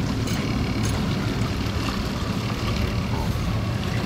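Motorboat engine running steadily under way, a constant low rumble.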